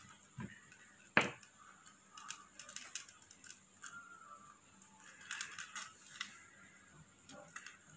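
Faint clicks and ticks of a small metal jump ring being handled between the fingers, with one sharp click about a second in.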